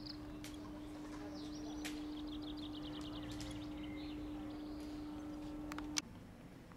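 Songbirds singing outdoors in quick high trills of rapidly repeated notes, one trill stepping down in pitch. Under them runs a steady low hum, which cuts off suddenly with a click about six seconds in.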